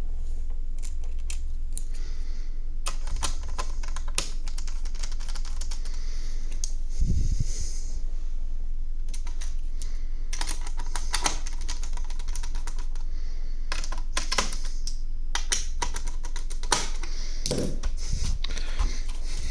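Small screws being driven back into a ThinkPad T430 laptop chassis with a screwdriver: clusters of rapid light clicks and ticks, with a dull thump about seven seconds in, over a steady low hum.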